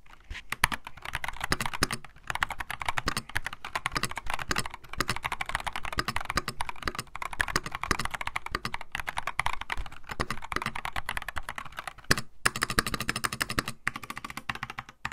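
Fast, continuous typing on an Epomaker TH66 mechanical keyboard with stock, unlubed Gazzew Boba U4T tactile switches and PBT XDA-profile keycaps, set on a T-shirt. There are a couple of brief pauses near the end.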